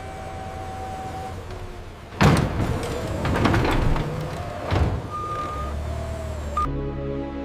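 Machinery running with a steady hum, then a sudden burst of clattering and clanking about two seconds in that lasts a few seconds. Soft background music takes over near the end.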